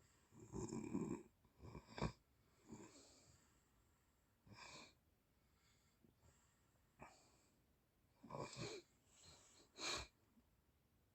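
A sleeping person snoring: irregular rough snores and breaths come every second or two with quiet gaps between. The loudest are about a second in, at two seconds, and near the end.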